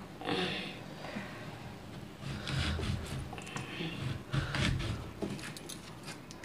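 Knife cutting a raw green mango by hand, soft scraping and rubbing sounds in a few short bursts.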